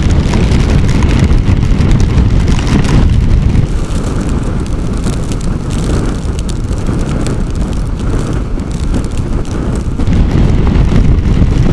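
Storm wind rushing and buffeting over a motorcycle rider's helmet microphone at road speed. The noise eases a little in the middle and builds again near the end.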